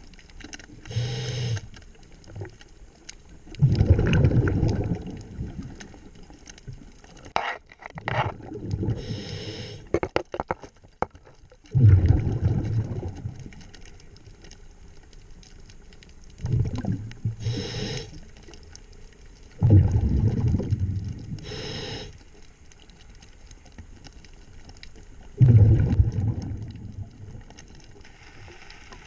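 A scuba diver breathing underwater through a regulator: about four breaths, each a short hissing inhale followed by a long low rumble of exhaled bubbles. A run of clicks and knocks comes partway through.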